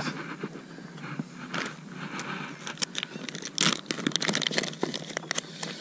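Crinkly plastic soft-bait package being handled and pulled open, a sparse crackle at first, then a dense run of crinkling from about three seconds in with a loud burst a little after.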